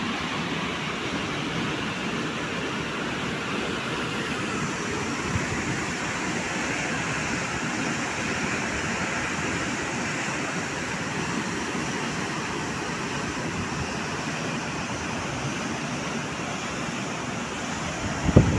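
Steady rushing noise of a flash-flood torrent of muddy water pouring through streets in a heavy downpour, with a sharp thump near the end.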